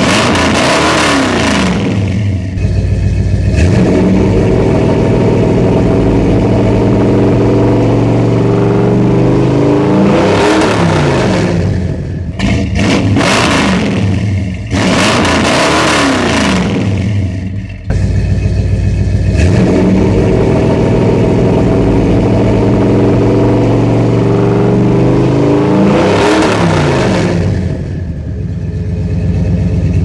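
A 1986 Chevy Suburban's 454 big-block V8 running through 3-inch true dual exhaust with Flowmaster-style mufflers joined by a newly fitted H-pipe. It idles and is revved several times, each rev climbing and falling back to idle.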